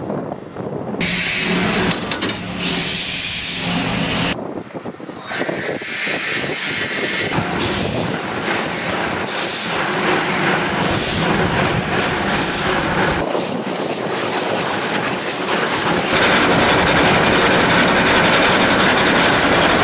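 Steam locomotive 25-026 of Slovenian Railways running, heard from on top of the engine: a dense noise of running gear and wheels rattling on the track. The sound changes abruptly several times.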